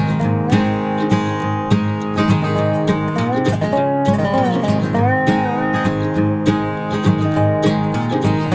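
Background music: acoustic guitar strumming and picking with a sliding melody over it.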